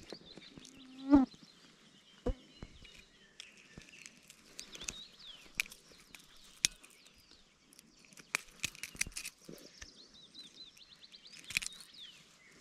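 Small birds singing and chirping, with a trill near the end, over scattered sharp clicks and light knocks. A brief louder sound comes about a second in.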